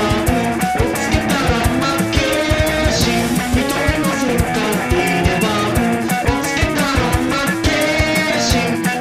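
Rock band music: guitar over a drum kit playing a steady beat.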